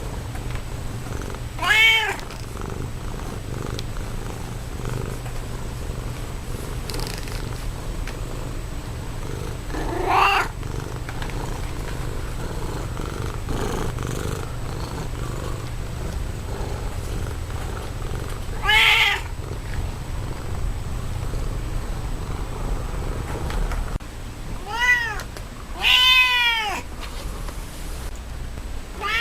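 Siamese cat purring steadily in a low rumble, broken by five short meows spaced several seconds apart, the last two close together near the end.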